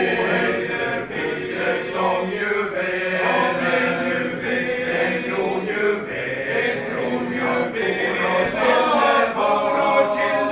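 A male voice choir singing a cappella, with sustained sung notes moving from pitch to pitch.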